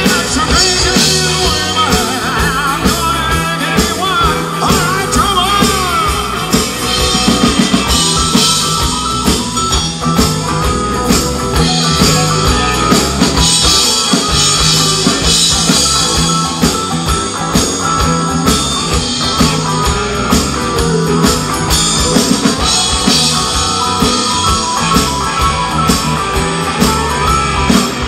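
Live rock and roll band playing with electric guitars, bass, drums and keyboards, and a man singing lead.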